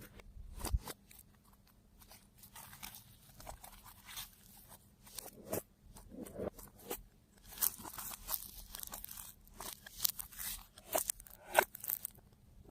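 Slime being kneaded and squished by hand, giving irregular crackling, clicking and popping, busiest in the second half.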